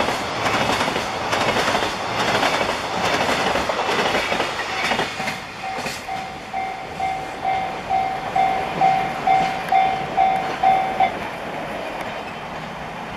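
Container freight train wagons passing with wheel clatter over the rail joints, fading out after about five seconds. Then a level-crossing warning bell rings in even dings about twice a second, growing louder, and stops about two seconds before the end.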